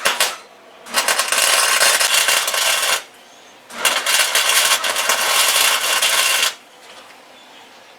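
Welder laying two runs of weld on sheet-metal floor panels, each a steady crackle lasting about two to three seconds, with a short pause between them. A brief sharp click right at the start.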